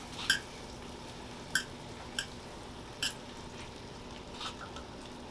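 Metal serving tongs clicking against a stainless steel frying pan, five light sharp clicks spread out, the last one softer, as vegetables and noodles are tossed. Under them is a faint steady hiss of the pan cooking.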